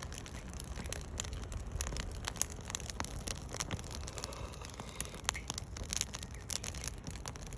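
Wood campfire burning in a fire pit, crackling with irregular sharp pops and snaps, over a low steady rumble.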